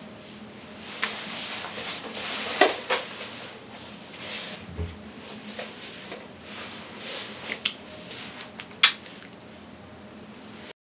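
Close handling noise: soft rustling with scattered sharp clicks and taps, the loudest about two and a half seconds and nine seconds in.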